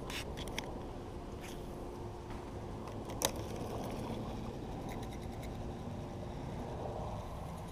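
Handling noise from a baitcasting rod and reel held close to the microphone: a low steady rumble with a faint hum, a few light clicks, and one sharp click a little over three seconds in.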